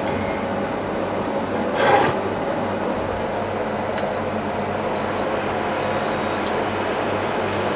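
Microwave oven keypad beeping: four short high beeps, the last two in quick succession, over a steady appliance hum, with a brief clatter about two seconds in.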